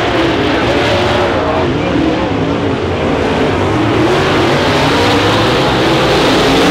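Several dirt late model race cars' V8 engines running hard around a dirt oval, their pitches rising and falling as they lift and accelerate through the turn.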